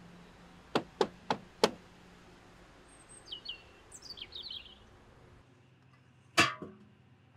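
Four quick knocks on a door, then a bird chirping a few short descending notes, and a single thud near the end.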